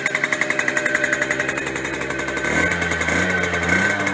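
Small single-cylinder two-stroke engine of a 1977 Zündapp CS50 Sport moped running with a rapid, even popping beat. About two and a half seconds in the throttle is opened a little and the engine note rises.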